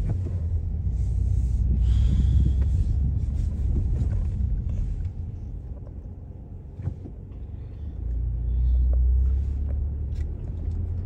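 Low rumble of a car driving along, easing off in the middle and swelling again for a second or two near the end.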